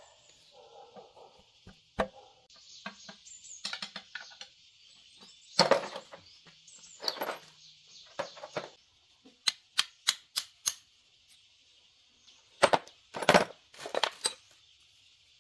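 Metal tools and small engine parts clinking and clattering as they are handled, in irregular sharp clicks and short rattling clusters, over a steady high insect buzz.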